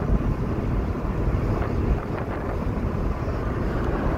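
Steady engine and road noise of a car driving, heard from inside the cabin.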